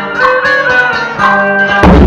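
Traditional Vietnamese ceremonial music with melodic wind and string lines. Near the end, a large drum on a stand is struck once, loud and booming.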